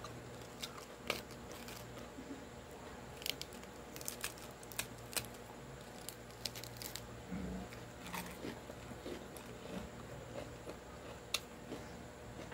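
Crisp lettuce leaves crackling as they are torn apart by hand and crunched while chewing: scattered sharp snaps, some of them louder.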